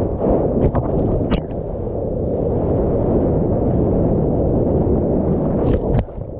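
Water and wind rushing over a GoPro camera's housing at surfboard level: a loud, steady low rumble, with a few sharp clicks about a second in and again near the end.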